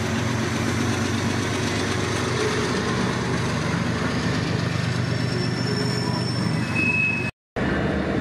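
CSX freight train passing close by: diesel-electric locomotives running, then covered hopper cars rolling along the rails, with a brief high squeal near the end. The sound drops out suddenly for a moment just before the end.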